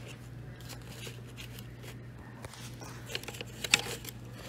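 Light clicks and rustles of plastic grille pieces being handled and pushed into place, with a sharper click or two near the end, over a steady low hum.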